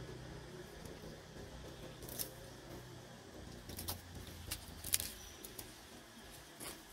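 A low steady hum that fades out early, then a handful of sharp, crisp clicks and crackles spaced irregularly, the loudest about five seconds in.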